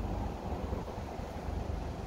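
Wind buffeting the microphone: an uneven low rumble with a steady hiss above it.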